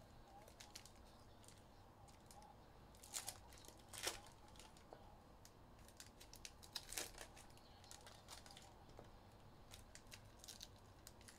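Faint handling of trading-card packs: brief tearing and crinkling of pack wrappers, a few short rustles about three, four and seven seconds in.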